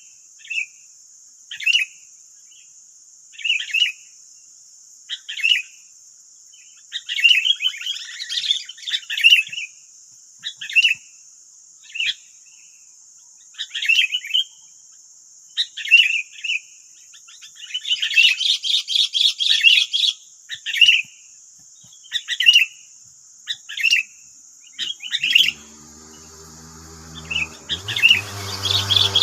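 Sooty-headed bulbuls (kutilang) calling: short chirps every second or two, with two longer runs of chattering, one about a third of the way in and one past the middle. A steady high hiss runs underneath, and a low droning hum comes in near the end.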